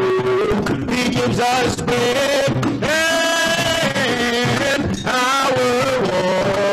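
Worship song: voices holding long sung notes over instrumental accompaniment with a drum beat.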